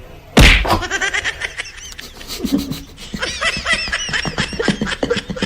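A loud, sudden thump about half a second in, then a person laughing hard in quick, high-pitched bursts.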